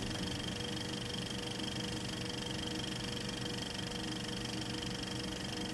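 A quiet, steady drone of several held tones over a faint hiss, unchanging throughout.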